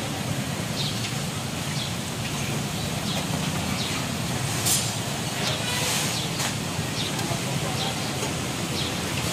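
Sesame balls deep-frying in a wok of hot oil, sizzling steadily over a busy market's background of traffic rumble and distant voices, with a few sharp clicks about halfway through from metal tongs against the wok.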